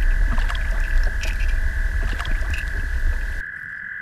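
Underwater sound from a submerged camera: a heavy low rumble with scattered clicks and ticks over a steady high whine. The rumble cuts off about three and a half seconds in, leaving the whine and faint ticking.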